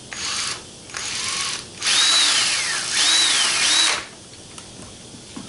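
Cordless drill driving a screw in three bursts: two short ones, then a run of about two seconds in which the motor's whine falls in pitch and jumps back up twice.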